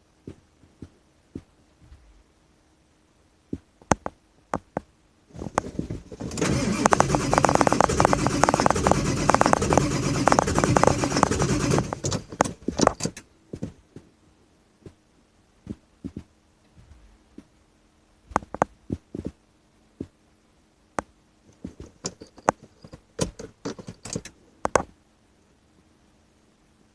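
A 2000 Ford F-550's 7.3 L Power Stroke diesel cranks on the starter for about six seconds and then stops without settling into a run. This is a hard start on worn injectors that need replacing. Scattered light clicks come before and after the cranking.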